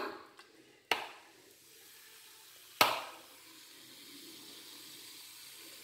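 Two sharp knocks about two seconds apart, then a faint steady hiss as vinegar is poured onto baking soda in a mixer-grinder jar and starts to fizz.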